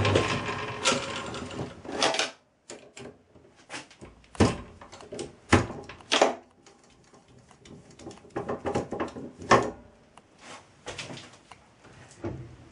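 A Myford lathe's motor and spindle running down to a stop, followed by a series of sharp metallic clicks and clunks as the chuck and brass workpiece are handled on the headstock.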